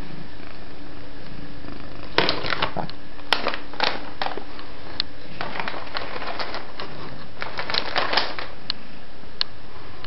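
A polydactyl cat's claws clicking and tapping on the top of a refrigerator as it shifts its front paws: irregular sharp clicks, some in quick clusters, starting about two seconds in and thinning out near the end.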